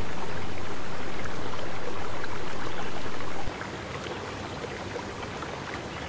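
Water trickling and splashing steadily from a small tube into a pot. About three and a half seconds in it drops suddenly to a quieter, steady trickle.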